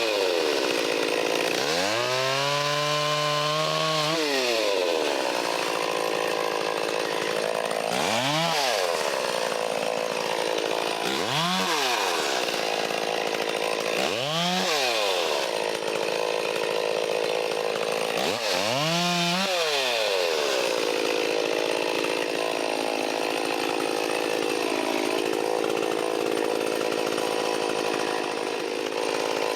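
Stihl 034 two-stroke chainsaw cutting wood, revved up and let back several times, with longer stretches held at full speed through the cuts.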